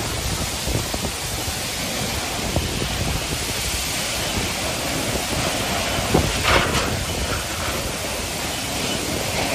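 Storm wind and heavy rain, the wind buffeting the microphone with a steady low rumble under the hiss of the rain, and a brief louder gust about six seconds in.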